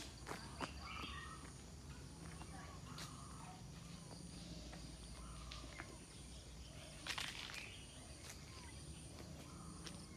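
Footsteps of a person walking outdoors, heard as scattered soft steps, with faint short calls in the background and a steady low hum.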